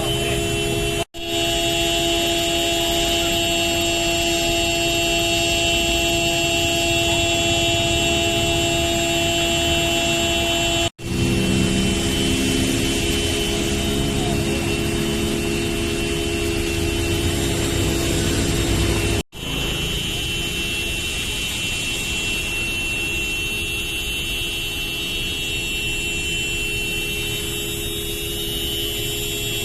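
Road traffic: vehicle and motorcycle engines running with steady noise, broken by brief cuts about a second in, about eleven seconds in and near twenty seconds in.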